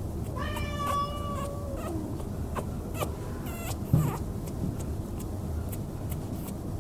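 A kitten meowing: one long, drawn-out meow about half a second in, then a shorter, higher call a little past three seconds, followed by a thump and a few light clicks.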